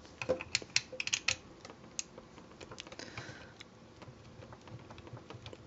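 Light clicks and taps of a small screwdriver and plastic toy parts being handled while tiny screws are worked loose, thickest in the first second and a half and then sparser, with a short scrape about three seconds in.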